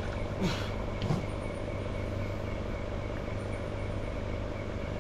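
Steady motor hum with hiss, and two brief short sounds about half a second and a second in.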